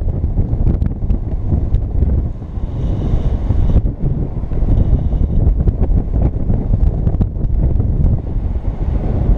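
Airflow buffeting the microphone of a camera on a flying paraglider pilot: a loud, steady, low rushing wind noise.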